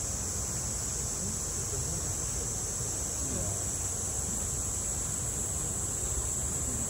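Steady high drone of a summer cicada chorus, over the even rush of a small waterfall splashing into a pool.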